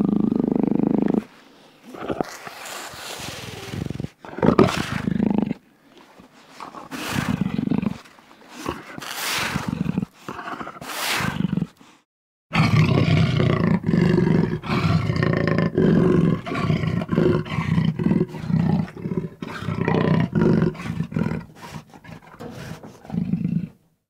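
Jaguar growling: a low growl, then about five short, harsh snarls a second or two apart, then after a brief break a long, steady growl.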